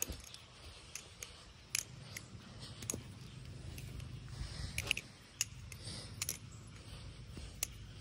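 Firefly V2 balisong trainer being flipped: sharp metallic clicks and clacks as the handles swing and strike the tang pins, coming irregularly a few times every couple of seconds. A low wind rumble runs underneath.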